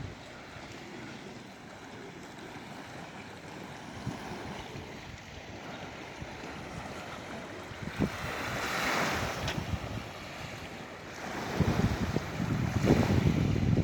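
Sea waves washing onto the shore, with one wave's wash swelling up about two thirds of the way through. Wind gusts against the microphone as low rumbles near the end.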